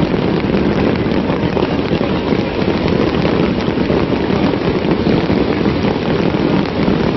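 Fireworks display crackling continuously: a dense, steady crackle of many small bursts, with no single loud boom standing out.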